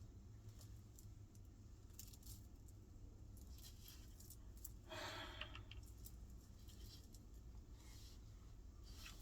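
Near silence with faint scattered clicks and rattles of small parts being handled, and a short louder rattle about five seconds in.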